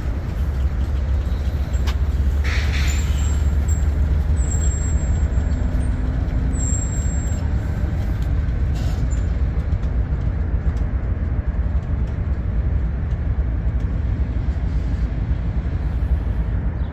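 Double-stack intermodal train's well cars rolling past, a steady low rumble of steel wheels on rail. A short hiss comes about two and a half seconds in, and a faint high squeal sounds from about four and a half to seven seconds in.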